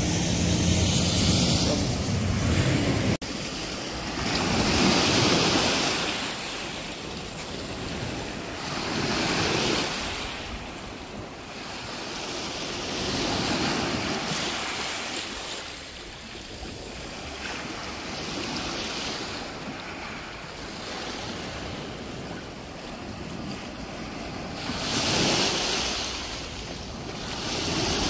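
Small waves breaking and washing up a sand-and-pebble shore, the surf swelling and fading every few seconds, with wind buffeting the microphone. A heavier wind rumble in the first three seconds cuts off suddenly.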